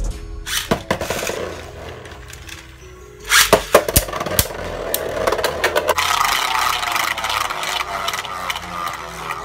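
Beyblade Burst tops, Erase Diabolos and Zwei Longinus, in a plastic stadium. A cluster of sharp clacks comes about three seconds in as they land and collide, and then they spin and scrape across the stadium floor with repeated clicking hits, over background music with a beat.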